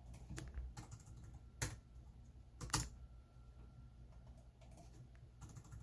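Computer keyboard keystrokes and clicks, scattered and sparse, with two louder clicks about one and a half and two and a half seconds in, over a faint low room hum.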